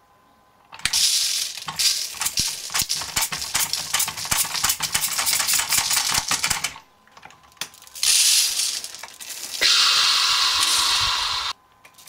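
Uncooked rice grains rattling and pattering onto a hard tabletop as a toy front loader's plastic bucket tips and pushes them: a dense run of tiny clicks, then after a short pause near 7 s, bursts of steady hiss of grains sliding and pouring.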